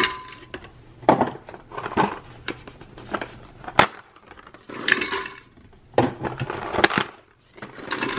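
Aluminium Nespresso coffee capsules dropped into a glass jar, a string of separate clinks and clatters against the glass and against each other as the jar fills.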